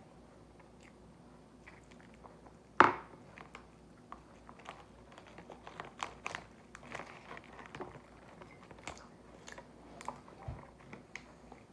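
Close-up eating of a packaged Pokémon bread snack: chewing and biting with many small irregular clicks. One sharp knock about three seconds in is the loudest sound.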